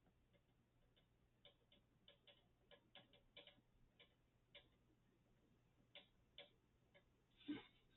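Faint, irregular clicks and taps of hands working on a computer case and its parts, with one louder knock near the end.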